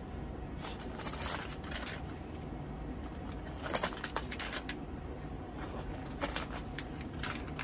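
Packets of instant mashed potatoes being handled and sorted: short bursts of crinkling and rustling in three clusters, over a steady low hum.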